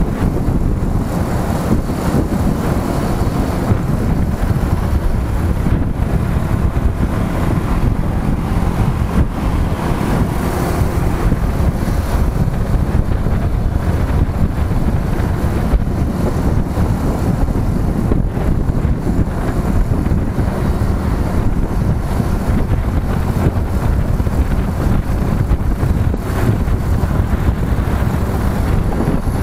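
Motorcycle on the move, its engine and road rumble mostly covered by steady wind buffeting on the microphone.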